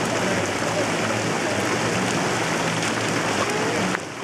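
Steady rushing hiss of waterpark water features running and spraying, with faint background voices of people. The rush dips suddenly near the end.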